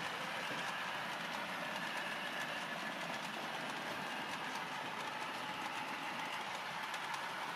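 H0-scale model train, a Piko Hobby locomotive hauling a long rake of freight wagons, running along the layout's track. It makes a steady whine with light, irregular clicking of wheels over the rail joints.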